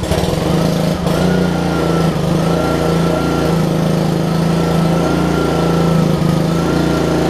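Honda GCV160 single-cylinder engine on a pressure washer catching on the first pull of its recoil starter, with the choke on, and running steadily, with a steady high whine above the engine note. Its newly fitted carburetor is working: the engine runs well, the pump turning with no water hooked up.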